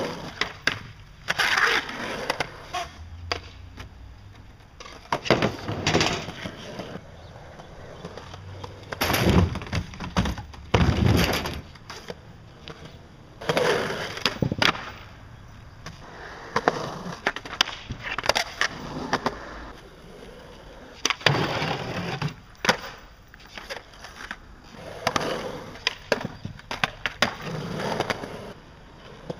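Skateboard urethane wheels rolling on concrete, with board pops, scrapes along a concrete ledge and hard slaps and thuds of landing, in several separate tries with quieter spells between.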